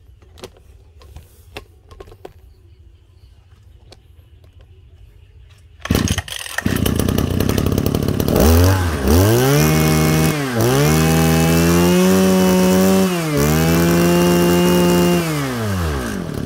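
Small 23cc two-stroke engine (TL23, Ryobi-badged), set up to run on bottled gas, starts with a sudden burst about six seconds in. Its throttle is then blipped several times, the pitch climbing, holding high and dropping back, and it falls toward idle near the end. Before it starts there are only a few faint handling clicks.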